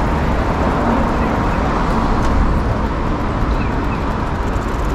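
Busy street ambience: a steady wash of road traffic noise with people's voices mixed in.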